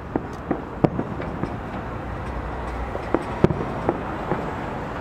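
Aerial fireworks shells bursting in a string of irregular bangs and cracks, the loudest about three and a half seconds in, over a steady background noise.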